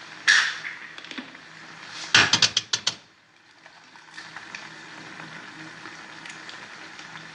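Eggs being cracked on the rim of an enamel pot: a single knock, then a quick run of about six sharp taps about two seconds in, over a faint steady hiss from the pot on the gas flame.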